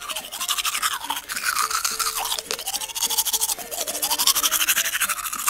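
Toothbrush scrubbing teeth in fast, even back-and-forth strokes, the scratchy brushing sound shifting in pitch as it moves around the mouth.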